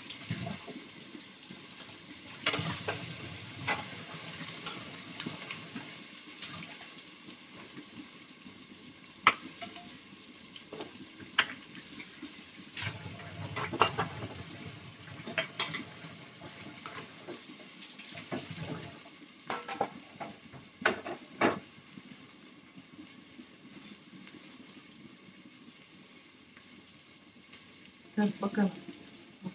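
Sliced onions sizzling as they fry in oil in a pot, with a spatula stirring them and now and then knocking and scraping against the pot.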